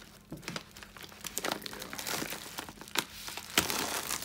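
Packaging crinkling and rustling as it is opened by hand, in a run of short crackles, the sharpest about three seconds in and again shortly after.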